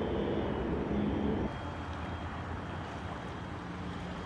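Steady low outdoor rumble with a faint engine-like hum. It drops and changes character abruptly about a second and a half in.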